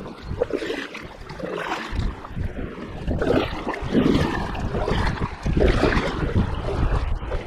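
Water splashing and rushing around a kayak on a fast, high-running river, with wind rumbling on the microphone that grows stronger about two seconds in.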